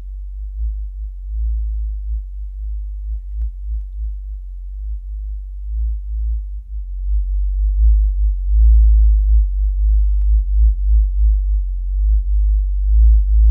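A 50 Hz sine test tone played through an Earthquake Sound MiniMe DSP P12 12-inch subwoofer, heard as a steady deep hum. The tone is played with the linear DSP on and then off, and it grows louder about halfway through.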